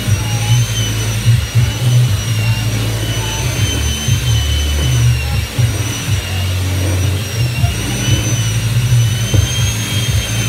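Electric hand mixer running with its beaters in a plastic bowl of sugar cookie dough. The motor gives a steady high whine that wavers slightly in pitch, over an uneven low rumble.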